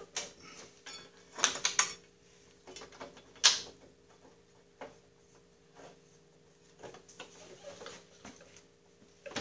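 Metal clicks, clinks and knocks of a bolt and bracket being handled and worked loose on a Snapper rear-engine riding mower's drive assembly, with a few sharper knocks about one and a half and three and a half seconds in. A faint steady hum runs underneath.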